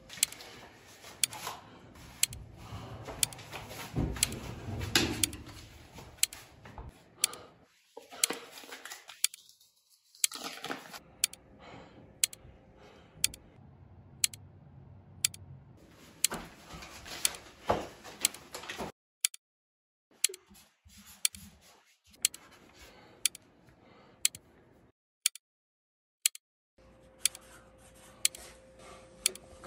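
Countdown clock ticking about once a second, with rustling and knocking of a room being searched between the ticks; the sound cuts to dead silence twice near the end.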